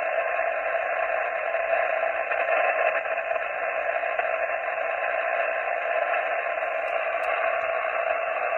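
Steady static hiss from a ham radio transceiver's speaker, receiving an empty voice (single-sideband) channel on the HF band: the radio has just switched from transmit back to receive after a CQ call, and no station is answering yet.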